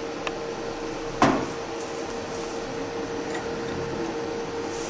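Small diesel-injector parts handled by hand at a workbench: one sharp click about a second in and a few faint ticks, over a steady hum.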